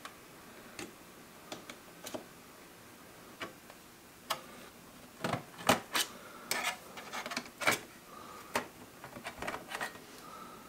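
Small, irregular clicks and taps from a car cassette player's parts being handled and worked loose by hand. They come in ones and twos at first, then bunch together from about halfway through.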